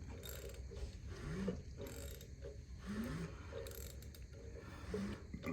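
Socket ratchet clicking in repeated strokes, about one a second, as the engine is turned over by hand to watch the valvetrain. An exhaust rocker arm on cylinder 4 is not moving.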